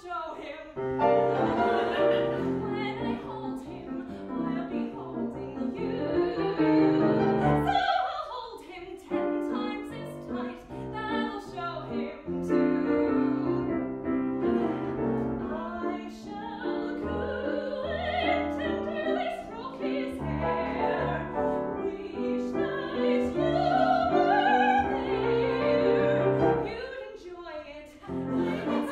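A woman singing a musical-theatre song in a classically trained voice, accompanied on grand piano.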